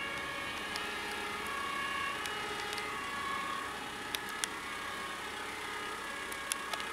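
Street traffic with a faint two-tone emergency-vehicle siren (German Martinshorn) from the departing rescue vehicles, its tones switching back and forth in pitch. A few sharp clicks in the second half.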